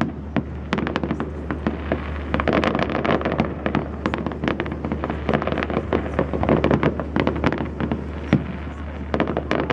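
Fireworks display: a dense, irregular string of sharp cracks and bangs from bursting shells, several a second.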